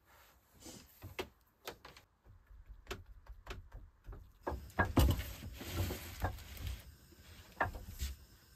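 Kitchen handling sounds: scattered knocks and clicks, turning into a busier stretch of clatter and rustling from about halfway.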